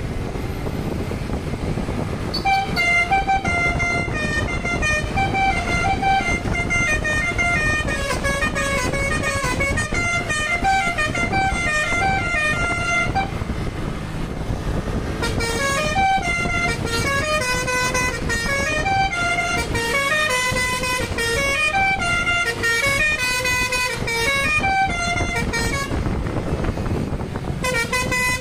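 Basuri V3 telolet bus horn playing its multi-tone tune, sped up: quick stepping notes sounding several pitches at once, in a long run starting a couple of seconds in, a short break in the middle, a second long run, and a third starting near the end. A steady low rumble lies underneath throughout.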